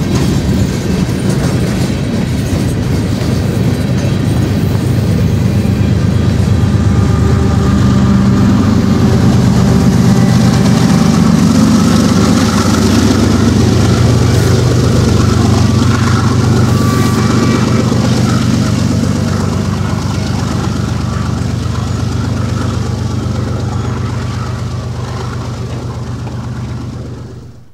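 Freight train passing: diesel locomotive engines running steadily over the continuous clatter of wheels on the rails, swelling toward the middle. The sound cuts off suddenly at the end.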